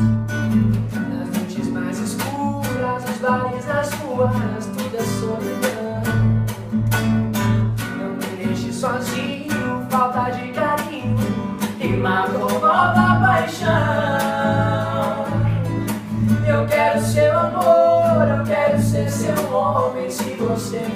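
Sertanejo love song: strummed acoustic guitar over a steady pulsing bass, with male vocals singing the melody.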